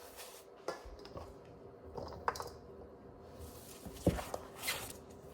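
A few scattered light knocks and clicks of objects being handled, the sharpest about four seconds in, over a faint steady hum.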